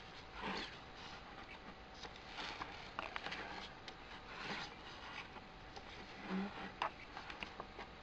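Thick photo book pages being turned by hand, each page sliding and rubbing across the next about every two seconds, with a few light clicks as the pages settle.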